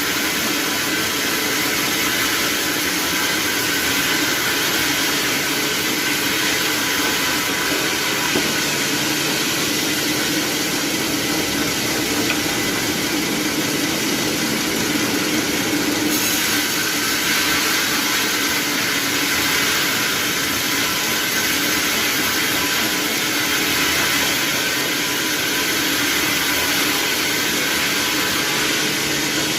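Sawmill machinery running steadily, a constant mechanical noise with no strokes or pauses.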